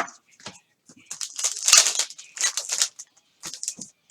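Crinkling and tearing of a trading-card pack's foil wrapper as it is opened, in a few bursts with a sharp click at the start.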